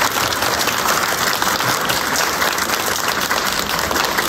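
Steady applause: a large group of people clapping together.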